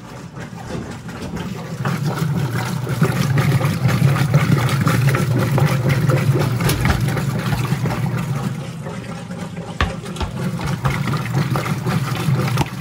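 Whirlpool direct-drive top-load washer agitating during its rinse: the motor runs steadily while the agitator churns the water in the tub. It gets louder about two seconds in.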